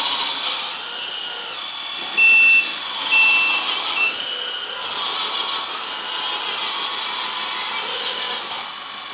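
LESU 1/16 R100E RC mining dump truck driving in reverse, its electric drive and gears giving a steady whine that swells and eases. Short electronic reversing beeps from its sound unit come about two and three seconds in.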